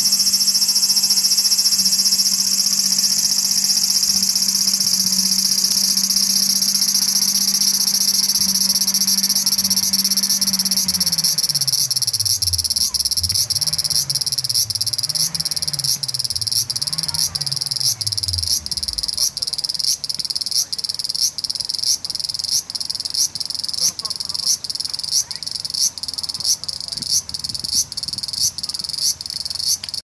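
Large brown cicada (Graptopsaltria nigrofuscata) singing: a loud continuous high-pitched sizzle that, about ten seconds in, breaks into an even train of pulses, a little over one a second, that stand out more clearly toward the end.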